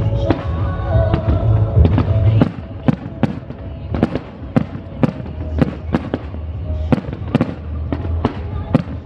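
Fireworks going off in a fast, irregular string of sharp bangs, several a second. Music plays underneath, and the whole is louder over the first two and a half seconds.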